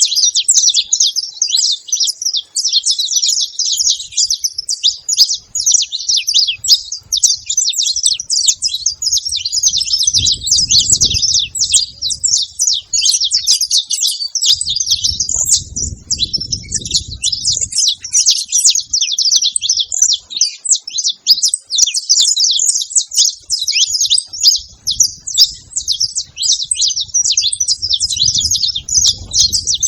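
Several saffron finches chirping and singing at once in a dense, unbroken chatter of high, quick notes.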